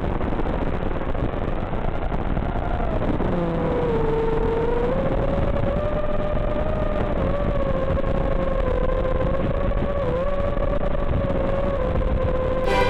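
Emax 2306 2400KV brushless motors on a racing quadcopter whining, the pitch wandering with throttle and dipping briefly twice, over a steady rushing hiss. Music comes in right at the end.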